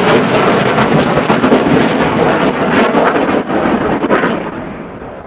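Saab Gripen C's single Volvo RM12 turbofan, a loud jet roar with crackle as the fighter passes, fading away over the last second or so as its high end drops off.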